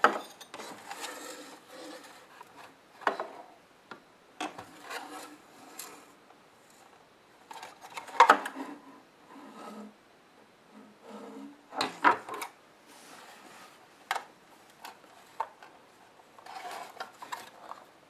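Plastic housing parts of an opened thermo-electric dehumidifier being handled: rubbing and scraping with sharp clacks now and then, the loudest about eight and twelve seconds in.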